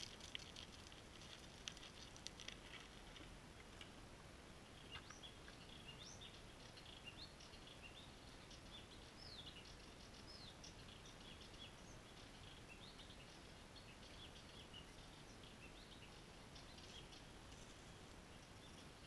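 Faint birds chirping: many short, high chirps scattered through the quiet outdoor ambience from about five seconds in. In the first few seconds, a light patter of chickens scratching and pecking in the leaf litter.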